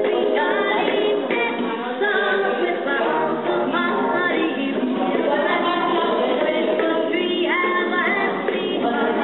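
Music: a song with singing voices.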